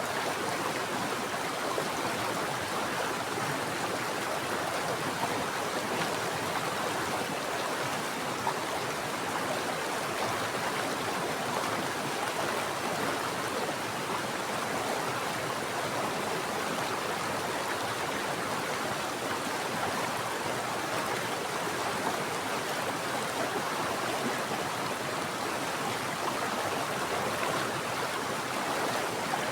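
Mountain stream flowing steadily over rocks, an even rushing of water.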